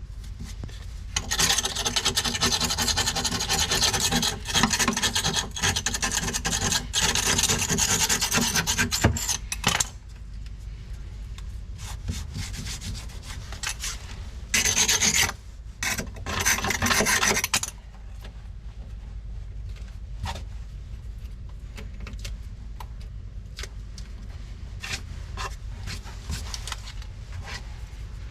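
Rasping strokes on a hard surface in two spells, a long one of about eight seconds and a shorter one of about three seconds, then scattered light clicks.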